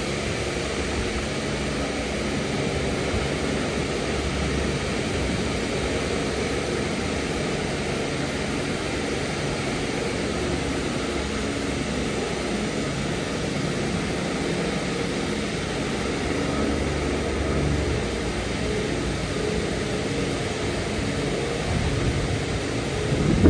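2005 Istobal M12+ rollover car wash in its 80-bar contour high-pressure stage: a steady hiss of water jets over a low machine hum. A brief louder surge comes right at the end.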